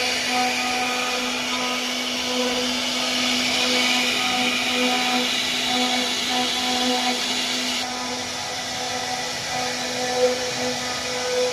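CNC router spindle running steadily as it cuts, a constant whine over a hiss; the hiss drops suddenly about eight seconds in.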